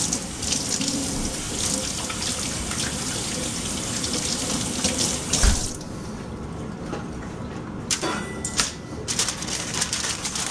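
Kitchen tap running into a sink for about six seconds, then shut off abruptly. Near the end, aluminium foil crackles as it is picked up.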